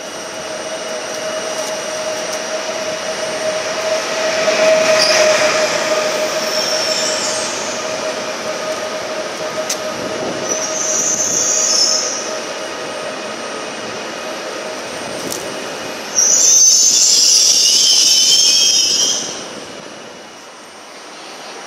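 Pesa Elf EN76 electric multiple unit pulling into a platform, its running noise building with a steady whine. Short high squeals from the wheels come about five and eleven seconds in, then a loud high squeal lasts about three seconds near the end and stops abruptly as the train slows.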